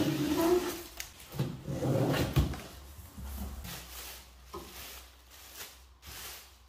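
A large cardboard box being unpacked by hand: plastic strapping pulled off, cardboard flaps knocked open, then the plastic sheet around the portable generator rustling and crinkling. The loudest clatters come about one and a half to two and a half seconds in, and softer rustling follows.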